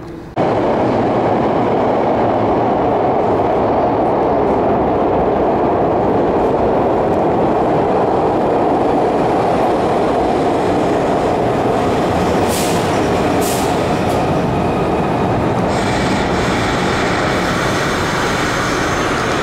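SEPTA Broad Street Line subway train of Kawasaki B-IV cars running at an underground platform: a loud, steady rumble of wheels and motors, with two short hisses about twelve seconds in and high squealing tones joining near the end.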